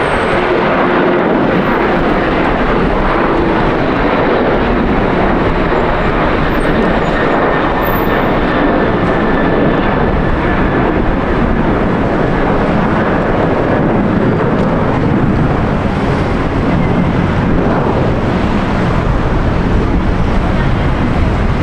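Jet airliner engines running loud and steady, a dense even noise with no let-up.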